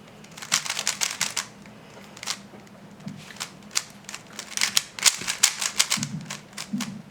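Magnetic speedcube (GAN 11M Duo) being turned fast by hand: rapid clicking of the layers in quick flurries, one soon after the start and a denser one past the middle, with single clicks between.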